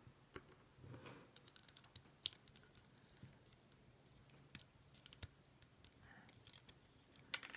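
Faint, irregular small clicks and taps of tiny metal lock pins and springs being handled while a pin-tumbler lock cylinder is taken apart.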